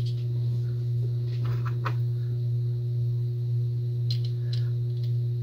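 A steady low background hum with a fainter higher tone above it. A few faint light clicks of the small metal parts of a Great Lakes Holiday 98 spincast reel being handled as its side plate is fitted onto the shaft.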